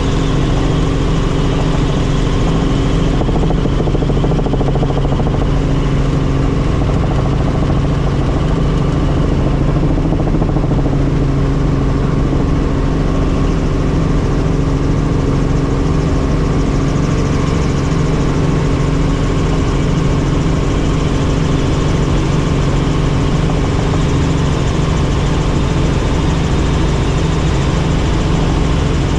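Helicopter in flight, its engine and rotor running steadily and loudly, with several constant low hums under a noisy rush.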